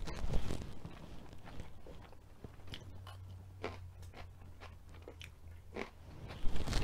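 Crisp crunching bites and close chewing of a raw yellow bell pepper strip, a string of sharp crunches scattered through.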